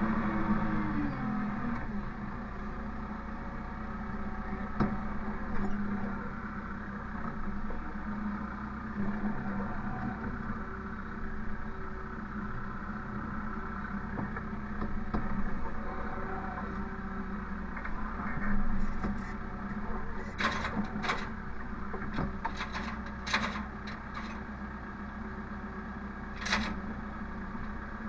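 Vehicle engine running steadily, its pitch dropping just at the start. Several short, sharp hisses or clicks come about two-thirds of the way in and again near the end.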